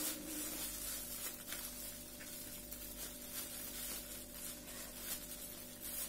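Thin plastic bag rustling and crinkling softly as its handles are pulled and tied into a knot.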